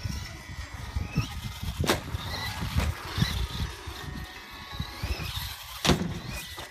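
Traxxas Stampede 4x4 VXL radio-controlled monster truck driving over a plastic-tile track. Its brushless electric motor whines up and down over an uneven rumble from the chassis and tyres. Two sharp knocks, about two and six seconds in, come from the truck landing or striking the track.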